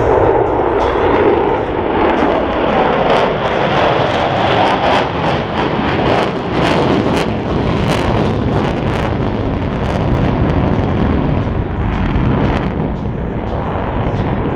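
Boeing F/A-18E/F Super Hornet jets passing, a loud, sustained roar with sharp crackling through the middle of the pass.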